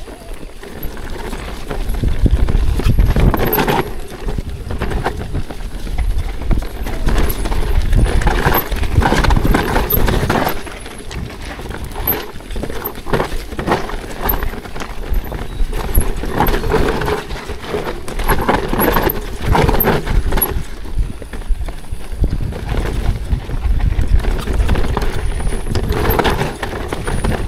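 ProPain Ekano 2 CF mountain bike ridden down a rocky trail: tyres and frame clattering and knocking over rocks and slabs, with a heavy low rumble that swells and eases in waves.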